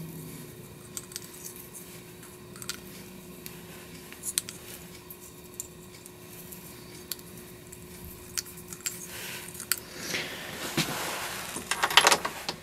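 Faint small clicks and rustles of fingers pressing stacked cardboard card wads down inside a plastic shotgun hull, over a faint steady hum. The handling grows louder and busier near the end.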